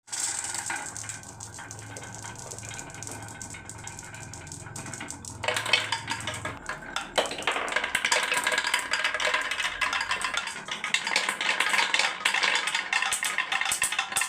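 Many marbles rolling and clacking down a wooden marble run, a dense rattling clatter that grows busier and louder about halfway through.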